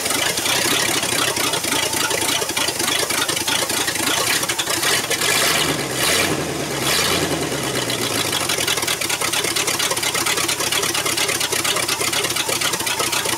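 A 305 small-block V8 with a two-barrel carburetor idles loud and raw with no exhaust connected. About five seconds in the throttle is opened by hand at the carburetor, and the revs rise and then settle back to idle over a couple of seconds.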